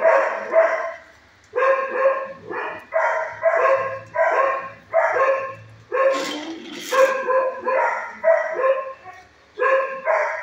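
Dog barking in a shelter kennel, short sharp barks about three a second in runs broken by brief pauses.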